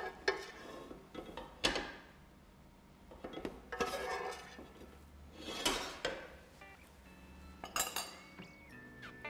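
Metal spoon and pan clinking and clattering in a few separate short knocks, a second or two apart, as kitchen utensils are handled and set down.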